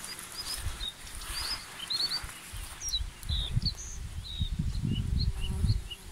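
Small birds chirping, short high notes repeating two or three times a second, over a low, uneven rumble of wind on the microphone.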